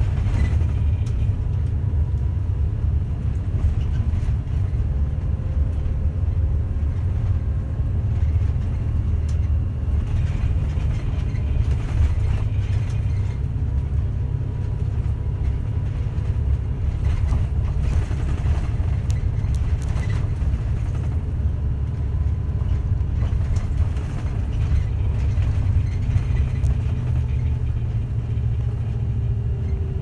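Route bus engine and road noise heard from inside the cabin: a steady low rumble, with a few light clicks now and then.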